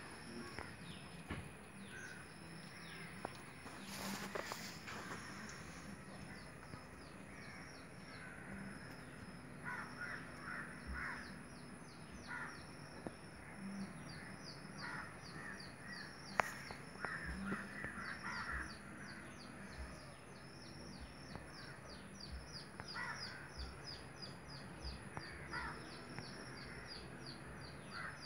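Birds calling outdoors: a quick run of short, high chirps repeating all through, with several bouts of lower, harsher calls. A single sharp click about halfway through.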